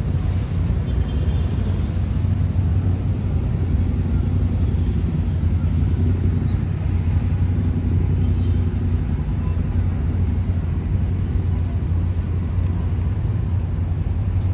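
Steady low rumble of city traffic from buses and cars on a busy avenue, with a thin high whine for a few seconds in the middle.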